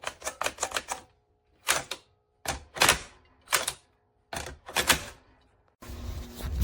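Sharp clicks and clacks in quick clusters with short silent gaps between them; a low hum with some noise comes in near the end.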